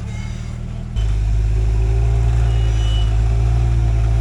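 Jeep Wrangler YJ engine working under load while rock crawling, picking up throttle about a second in and then holding a steady low drone.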